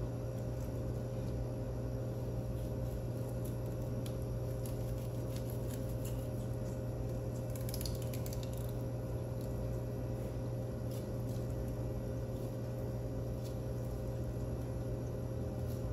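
A steady low hum, with faint soft scraping and small clicks from a knife slicing along a whole fish as it is filleted.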